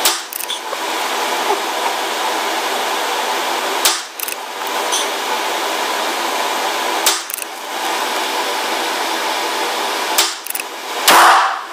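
Unsuppressed .22 LR shots from a CZ 457 Pro Varmint bolt-action rifle in an indoor range, four sharp reports about three to four seconds apart, the last the loudest, over a steady background hiss.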